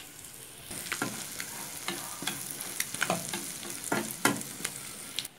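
Omelette frying in olive oil in a pan, a steady sizzle with repeated clicks and scrapes of a slotted spatula against the pan.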